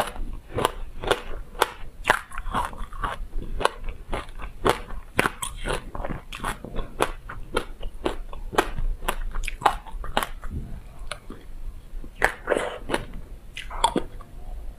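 Close-miked crunching and chewing of a mouthful of black sesame seeds and passion fruit pulp, with a quick, uneven run of sharp crunches several times a second.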